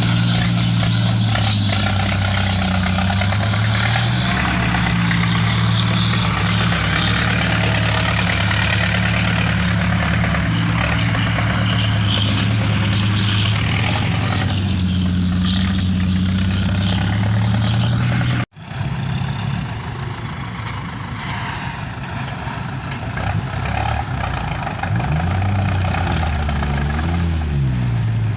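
Heavy diesel engine running steadily, with a sudden cut about two-thirds of the way through; afterwards the engine revs up and down a few times near the end.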